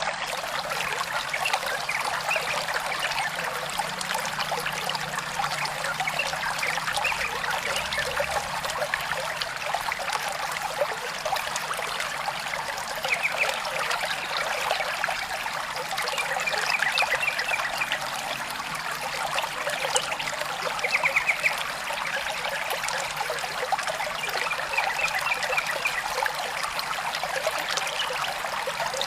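Small stream trickling steadily. A few short, rapid trills sound over it, the clearest about two-thirds of the way through.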